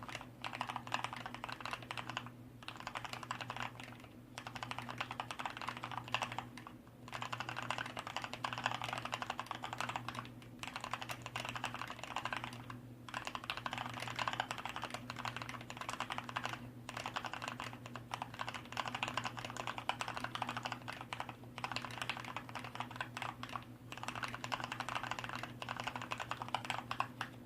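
Typing on a Hansung MKF1 Stealth mechanical keyboard with Kailh Black linear switches, the sliders and stabilizers lubed and the case dampened: fast, continuous keystrokes in runs broken by short pauses every few seconds.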